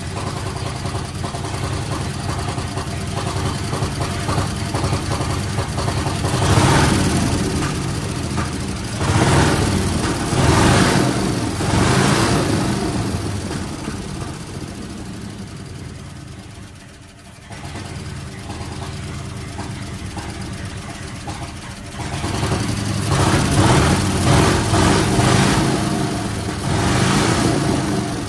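1970 Ford F250's engine running with the throttle worked by hand at the carburetor: it rises in several surges, sags low near the middle as if close to stalling, then picks up and surges again. It runs rough, with the carburetor dumping fuel.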